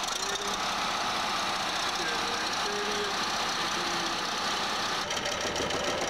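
Crane-hung vibratory pile hammer driving steel sheet piling, a loud steady machine drone with the crane's engine running. A rattle comes in about five seconds in.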